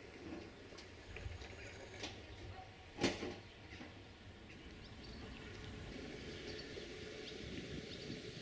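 Quiet outdoor background with a low rumble, small scattered clicks and faint high chirps, and one sharp knock about three seconds in.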